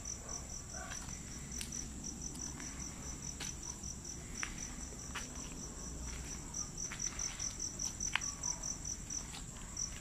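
Crickets chirping steadily: a continuous high trill with a rapid, evenly pulsed chirp just beneath it, and a few soft clicks and knocks scattered through.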